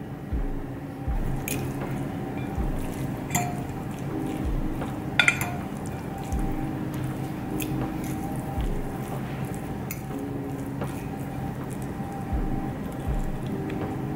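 Metal spoon and fork clinking against a ceramic bowl and stirring sauced rice, in a few scattered sharp clinks, the loudest about five seconds in. Under it runs soft background music with a steady beat.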